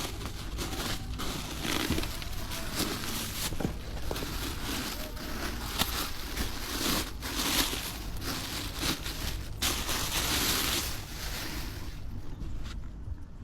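Helmet packaging being handled: rustling and crinkling of wrapping, with scattered light knocks and clicks; it gets quieter near the end.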